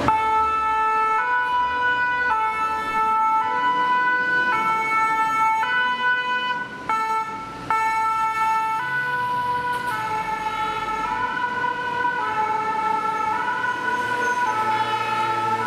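Paris Fire Brigade fire engine's two-tone siren, high and low notes alternating about once a second as the truck pulls away. It dips briefly near the middle.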